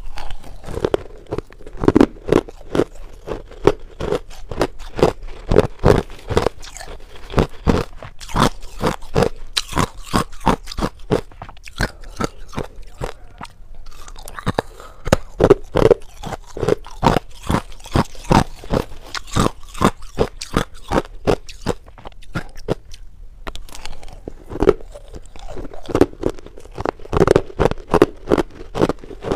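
Crushed ice being bitten and chewed close to a clip-on microphone: a steady run of sharp, crisp crunches, a few each second, thinning briefly about three quarters of the way through.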